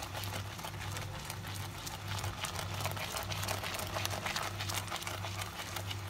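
Thick tomato and onion-ginger-garlic masala bubbling and spluttering in a pan on high flame while it is stirred with a slotted spatula, with scattered pops and crackles throughout. A steady low hum runs underneath.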